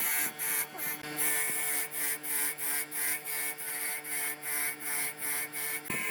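An electric motor runs with a steady hum while something is rubbed or filed against a workpiece in regular back-and-forth strokes, about three a second.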